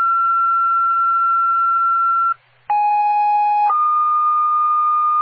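Two-tone sequential paging tones on a fire dispatch radio channel, sent to alert fire companies for a call upgraded to a structure fire. A long steady high tone ends about two seconds in. After a short break, one set follows: a lower tone for about a second, then a long, slightly lower high tone.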